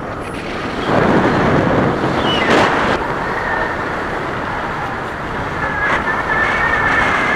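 Airflow rushing over the microphone of a camera carried on a tandem paraglider in flight, getting louder about a second in as the glider banks into a steep turn. A thin, steady high tone sounds through the second half.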